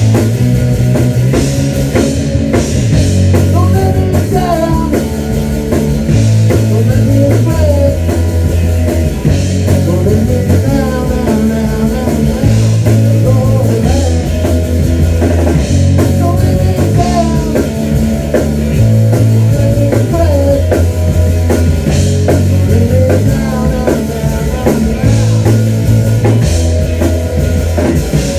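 A rock band playing live: distorted electric guitars over drums, with a low riff repeating every couple of seconds.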